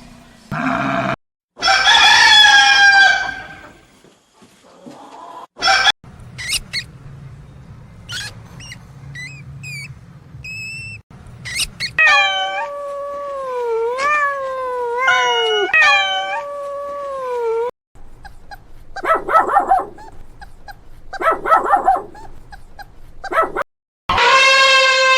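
A string of short animal-call recordings. Dogs howl and whine among them, in sliding, falling calls.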